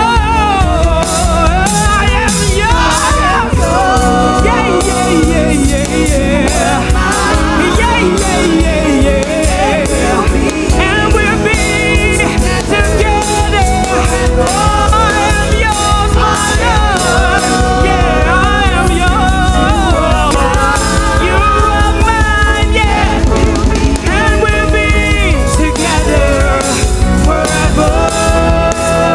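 Recorded live band music with singing played back for a mix: a sung melody over drums and bass with a steady beat.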